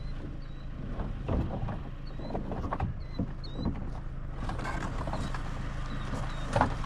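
Irregular knocks and scrapes of a kayak and paddle being handled as the boat is brought ashore, over a steady low hum.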